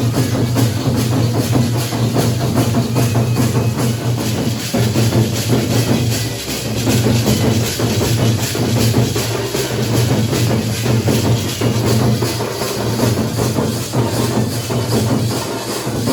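Dhol and nagada drums played in a dense, fast beat over a steady low hum.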